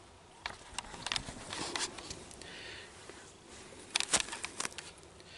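Handling noise as a camera is repositioned: irregular clicks, taps and rustling, with a tight cluster of clicks about four seconds in.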